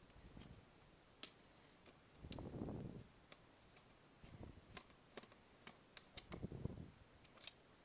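Small screwdriver backing a screw out of a plastic VHS cassette shell: faint grinding turns in short spells about every two seconds, with scattered sharp ticks and clicks of plastic.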